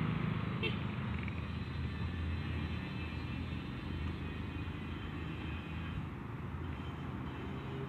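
Low, steady rumble of a vehicle engine, with a single click about a second in.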